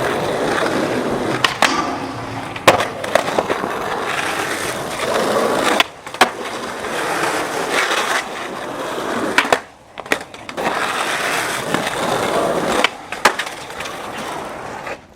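Skateboard wheels rolling on pavement, with several sharp clacks of the board hitting the ground. The rolling breaks off briefly twice.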